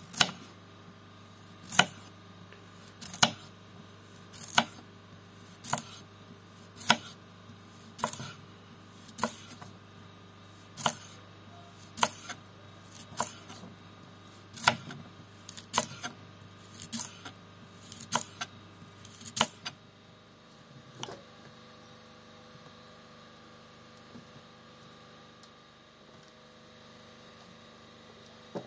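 Sharp knocks on a cutting board, about one every second, as food is cut. They stop about two-thirds of the way in, leaving a faint steady hum.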